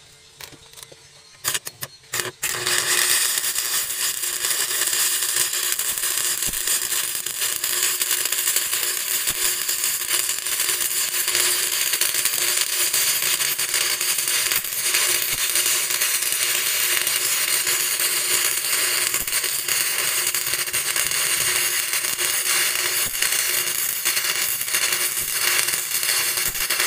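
Electric arc welding on steel: a few short crackling starts about two seconds in, then a steady, loud crackling sizzle as the weld runs.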